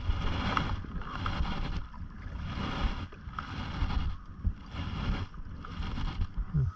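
Canoe paddle strokes: the blade pulling through the lake water with a swishing splash about once a second, six strokes in a row.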